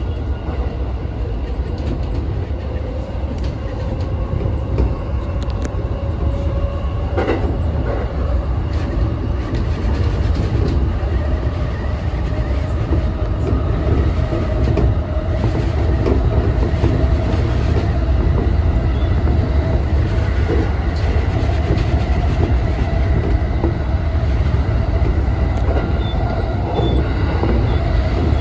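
E233-1000 series electric commuter train running on the rails, heard from the driver's cab: a steady rumble of wheels on track that grows slowly louder, with a faint whine that rises slowly in pitch as the train gathers speed. There is one sharp knock about seven seconds in.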